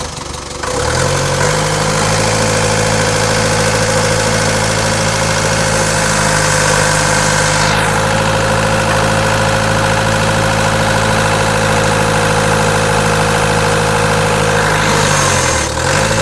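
Hydraulic excavator's diesel engine picking up speed about a second in, then running steadily with a constant whine, while its hydraulic pump is tested and builds 200 bar, a sign the pump is in good condition. Near the end the engine speed dips briefly and comes back up.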